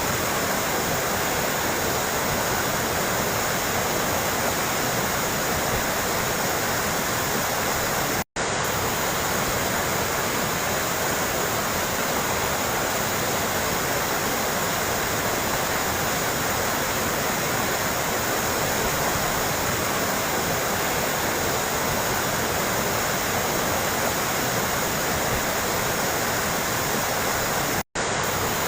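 Running water splashing steadily, a continuous even rush. It cuts out for an instant twice, once about eight seconds in and once near the end.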